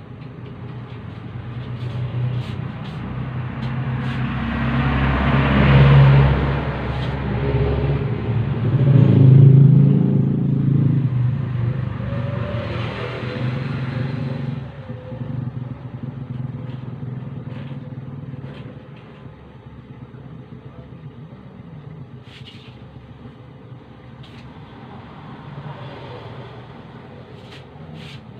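Engine noise of passing motor vehicles: a low rumble that swells up to a peak about six seconds in and again about ten seconds in, then settles to a lower steady level.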